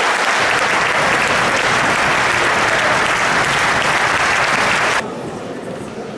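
Audience applauding in a large hall, stopping abruptly about five seconds in.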